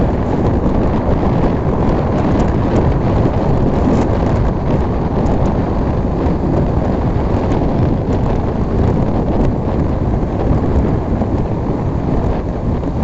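Heavy wind rumble on the microphone of a Bajaj Pulsar 125 motorcycle riding at about 90 km/h, with engine and road noise underneath. It stays steady and loud throughout.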